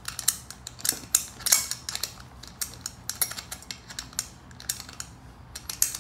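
Irregular sharp metallic clicks and ticks as the valve-stem lock nut is spun down by hand against a pit bike's spoked wheel rim, the strongest clicks in the first couple of seconds.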